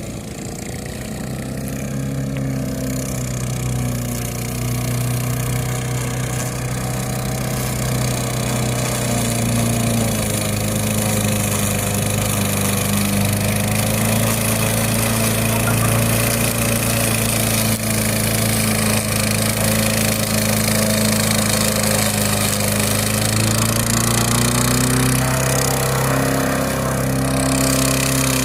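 Engine of a radio-controlled lawn mower running steadily, growing louder over the first several seconds. Its pitch sags a little about a third of the way in and picks back up near the end.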